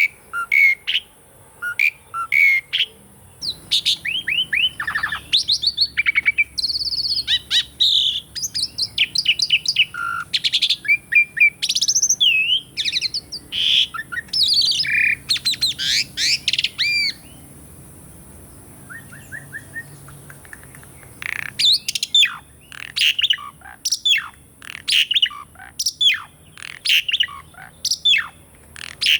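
Asian pied starling (jalak suren) singing: a varied run of whistles, squeaky slurred notes and chatter, a lull of a few seconds past the middle, then a string of short, sharp clipped notes. A faint steady high hiss runs underneath.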